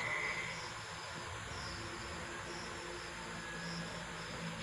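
Insects, likely crickets, chirping steadily in a high, pulsing trill, over a faint steady low hum.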